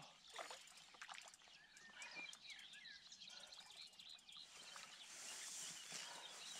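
Faint birdsong, many small high chirps and warbles, with a few soft clicks and a light hiss near the end.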